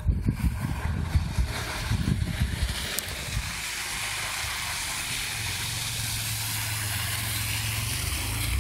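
A Mazda 929 drifting on snow and coming past close by. A steady low engine drone and a hiss of tyres on snow build up over the last few seconds. Irregular low buffeting rumbles are loudest in the first three seconds.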